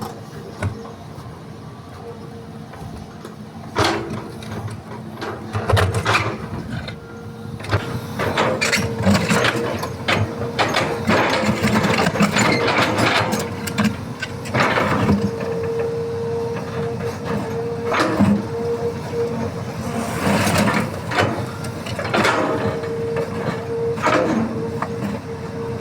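Hitachi hydraulic excavator at work: the engine runs with a steady whine, while knocks and scrapes come at irregular intervals. It grows louder and busier about a third of the way in.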